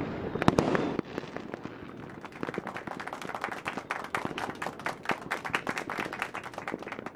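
Fireworks going off: a loud burst of bangs in the first second, then a long run of quick, sharp crackles that stops near the end.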